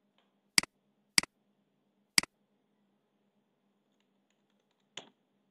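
Three sharp clicks of a computer mouse, the second and third about a second apart, then a softer short noise near the end.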